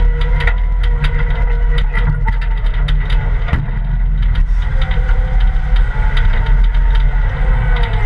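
Caterpillar 226 skid steer's diesel engine running steadily under load as the bucket pushes dirt, with frequent sharp rattling clicks over a steady whine.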